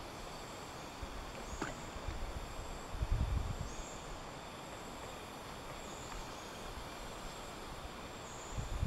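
Quiet outdoor ambience: a steady hiss with a faint high-pitched chirp repeating about every one and a half to two seconds. A low rumble comes about three seconds in and again near the end.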